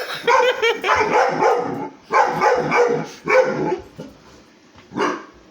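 A dog barking at a vacuum cleaner in rapid runs of barks through the first few seconds, then one more bark near the end.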